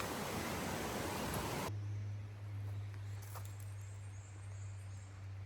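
Steady rushing outdoor background noise that cuts off abruptly about a second and a half in. It gives way to a much quieter stretch holding a steady low hum.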